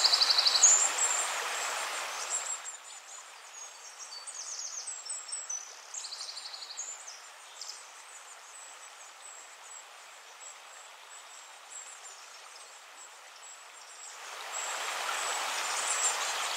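Birdsong, high chirps and a few short fast trills, over a steady rushing hiss of running water like a stream. The hiss drops away about two and a half seconds in and swells back near the end.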